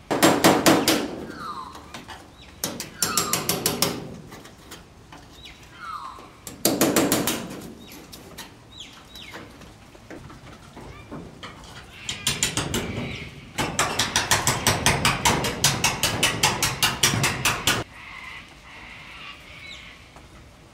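Hammer striking a thin file reworked into a chisel, driving it through spot welds on the steel roof channel of a 1961 Volkswagen Type 2 splitscreen bus: bursts of quick metallic taps, the longest run near the end.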